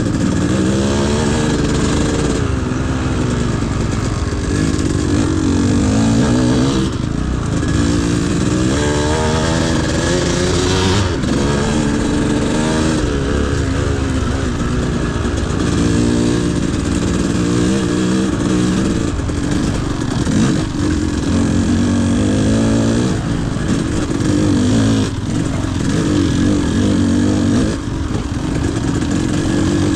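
Dirt bike engine during an off-road ride, its pitch repeatedly rising and falling as the throttle is opened and closed.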